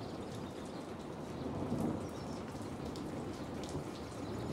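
Steady rain with a low rumble of thunder.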